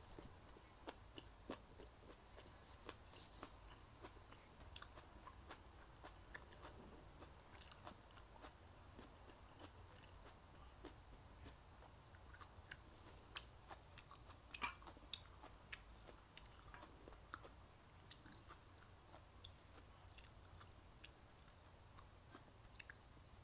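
Close-up chewing of a mouthful of mala xiang guo, a spicy stir-fry of vegetables and pork: soft, wet mouth clicks and small crunches, with a brief cluster of sharper clicks a little past halfway.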